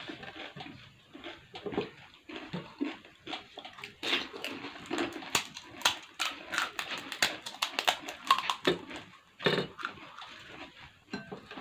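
Panipuri being eaten fast: crisp puri shells crunching and being chewed, with wet slurping mouth sounds. The crunching clicks come thickest in the middle of the stretch.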